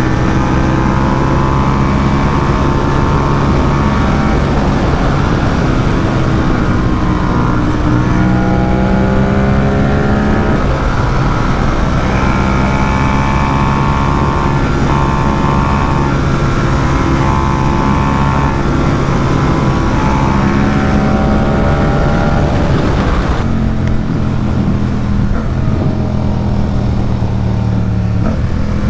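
Ducati SuperSport 950 S's 937 cc L-twin engine running while the bike is ridden. The engine note holds steady for stretches and rises and drops a few times as the throttle and gears change.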